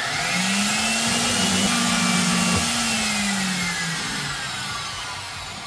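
Small benchtop metal-cutting bandsaw running: its motor hum comes up to speed at the start, holds steady, then drops in pitch and fades over the last couple of seconds as it winds down, with a steady hiss over it.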